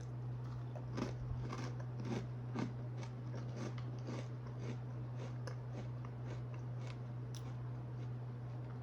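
Chewing crunchy rice crisps: a run of irregular crisp crunches, strongest in the first few seconds and thinning out after, over a steady low hum.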